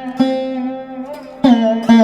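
Background music on a plucked string instrument: three struck notes that ring and fade slowly, with the pitch sliding between notes about halfway through.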